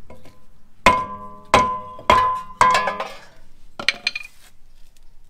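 Hammer striking a cast-iron rear brake rotor four times in quick succession to free it from the hub, the disc ringing after each blow, then a lighter metallic clank near the end as the rotor comes off.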